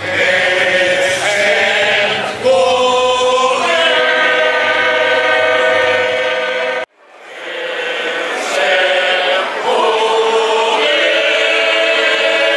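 A choir singing held chords together. The singing cuts out abruptly about seven seconds in, then fades back up and continues.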